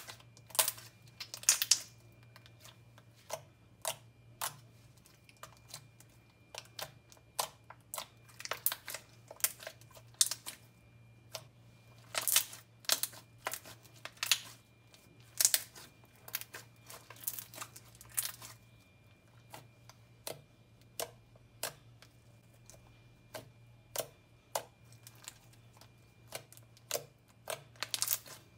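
Slime being squeezed, poked and stretched by hand, making irregular wet clicks and pops in clusters, the loudest near the start, in the middle and near the end.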